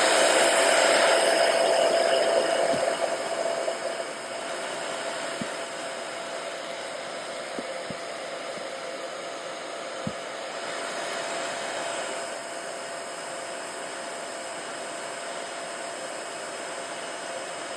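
Handheld hair dryer on its low fan setting blowing steadily, with a steady motor whine. It is louder for the first few seconds, then drops to a lower, even level about four seconds in, with a few faint ticks.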